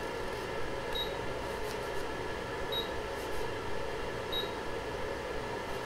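Three short high beeps from the Anycubic Photon resin printer's touchscreen, about a second and a half apart, as the Z-down button is tapped to lower the build plate in 0.1 mm steps while levelling it against paper. A steady hum runs underneath.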